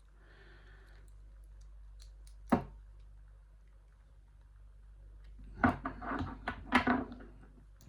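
Metal hand tools clicking and rattling as Allen keys are handled and tried in a padlock's screws: one sharp click about two and a half seconds in, then a quick cluster of clicks and rattles near the end.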